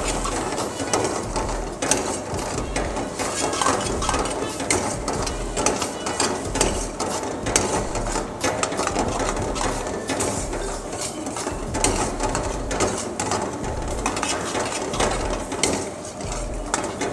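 Steel ladle scraping and clacking against a steel kadai as a thick masala gravy is stirred, a quick run of scrapes and clicks that keeps going.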